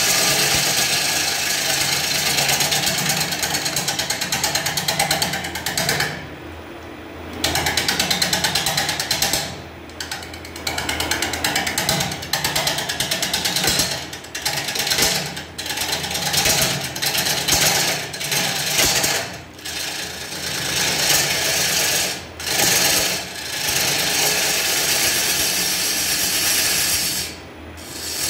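A turning tool cutting across the face of a large spinning blank of Albizia lebbeck wood on a lathe, a steady noisy shearing over the lathe's low hum. The cut breaks off briefly several times as the tool lifts, the longest break about six seconds in.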